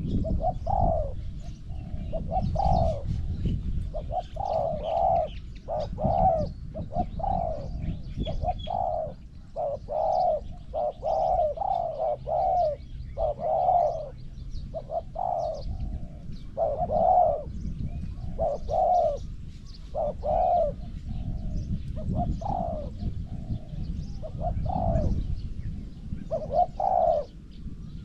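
Spotted dove cooing over and over, a long run of short low coos broken by brief pauses, over a steady low rumble; small birds chirp faintly behind.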